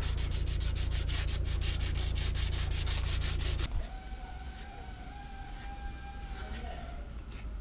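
A power tool running with a strong hum and a rapid, even pulsing, which stops abruptly about three and a half seconds in. A quieter machine with a steady thin whine carries on after it.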